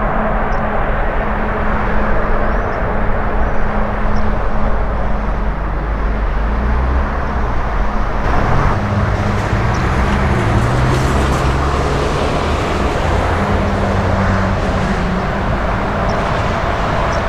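Jet aircraft engines running, a steady noise with low engine tones that shift in pitch about halfway through.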